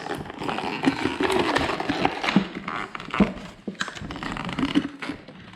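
Plastic and cardboard toy packaging crinkling and clicking irregularly as it is handled and pulled at to free the figures.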